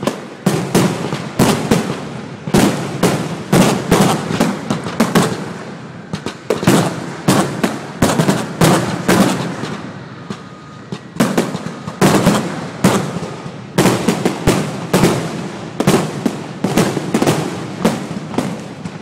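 Aerial fireworks display: a rapid string of loud shell bursts, several a second, each with a short echoing tail, easing briefly about six and ten seconds in before picking up again.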